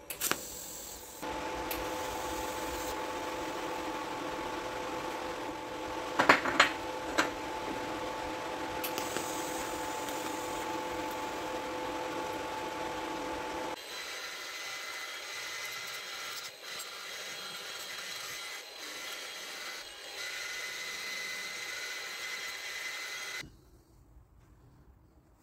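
Angle grinder working stainless steel, a steady abrasive grinding with a constant motor whine and a few sharp knocks about six seconds in. About halfway through the sound turns thinner and higher-pitched, and it stops a couple of seconds before the end.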